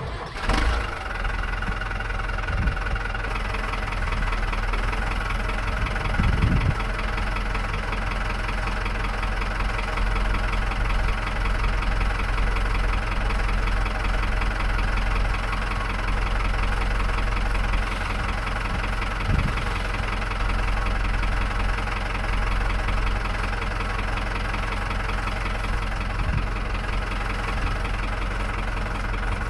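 Large Stihl chainsaw running steadily under load, milling a slab from an ash log on a chainsaw mill. It starts abruptly, with a higher whine over the first three seconds before it settles.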